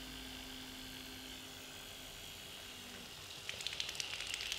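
Small DC motor driving a 3D-printed centrifugal water-jet pump, running with a steady electric whine. About three and a half seconds in, water starts spattering out with a crackling, rain-like sound as the pump begins to pump.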